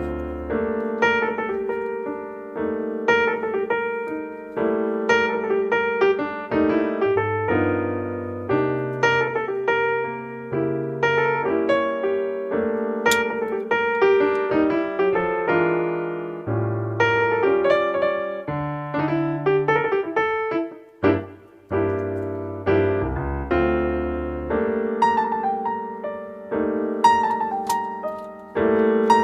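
Background music: a keyboard tune of quick, piano-like notes over held bass notes, with a brief break about three-quarters through.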